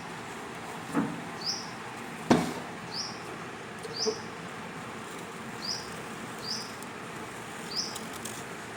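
A small bird chirping repeatedly: short, high chirps about once a second over a steady hiss. Two sharp knocks come early on, the second the loudest sound in the stretch.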